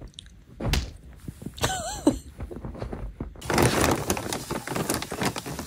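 A series of knocks and thunks, then from about halfway a dense rattling clatter of small hard objects, like dishes or a food bowl being handled. A short wavering high tone sounds about two seconds in.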